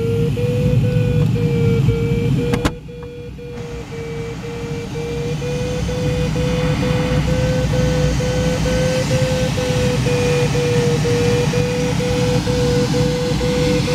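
Glider cockpit in flight: a low rushing of airflow with a variometer's steady audio tone on top, broken by short regular gaps. About three seconds in there is a click, and the rushing drops away sharply, then builds back up over the next few seconds while the tone carries on.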